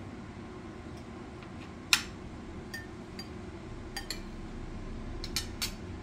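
Metal spoons and forks clinking against ceramic plates and bowls as people eat: about eight scattered short clinks, the loudest about two seconds in and a quick run of three near the end, over a low steady room hum.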